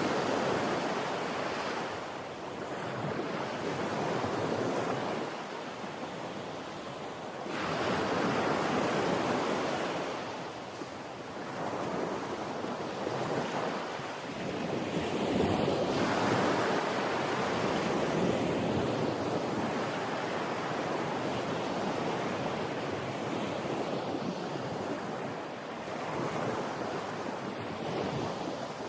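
Sea waves breaking and washing ashore, the surf swelling and ebbing every few seconds.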